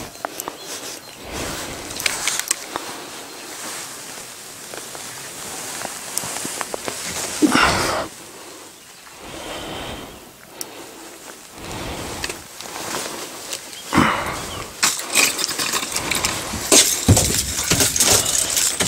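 Close rustling and knocking handling noise with scattered clicks, in uneven bursts.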